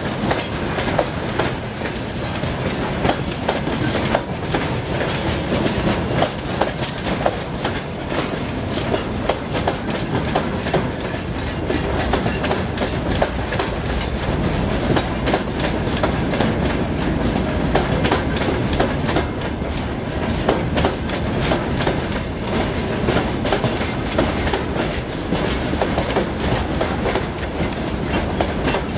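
Freight wagons of a long freight train rolling past close by, their wheels clattering steadily over the rail joints in a continuous clickety-clack over a rumbling undertone.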